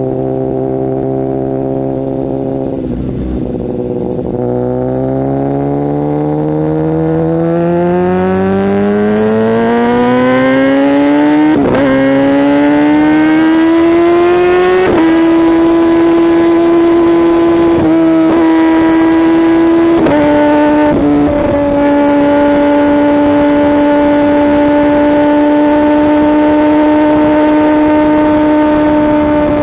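Kawasaki ZX-10R inline-four engine through a Mivv aftermarket exhaust, heard while riding. The engine note climbs steadily under acceleration, with several upshifts dropping the pitch over the first twenty seconds, then holds a steady cruise.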